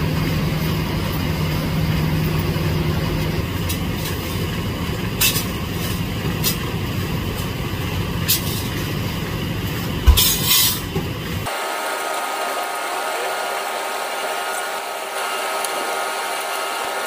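Steady noise of a brick flatbread oven with its fire burning, a low hum underneath and a few sharp knocks. About two thirds of the way in the sound changes abruptly to a steadier machine hum with a high whine.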